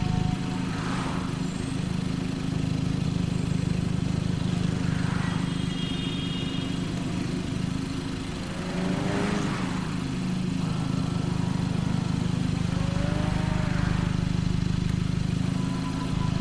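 BMW E30's engine running steadily as the car is driven. Its level dips just after the start and swells again near the end.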